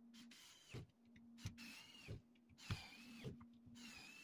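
Small cordless screwdriver motor whirring in four short bursts, about half a second each, with a click at the start and end of each, as screws are driven into wood.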